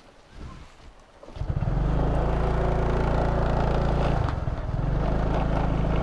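A motorbike engine comes in abruptly about a second and a half in, then runs steadily at an even pitch as the bike rides off slowly, easing off briefly near the middle.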